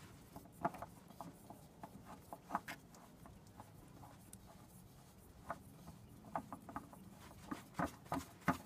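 Faint rubbing and scattered light clicks as a spin-on fuel filter is screwed back onto its base by hand, with a sweatshirt brushing against the microphone.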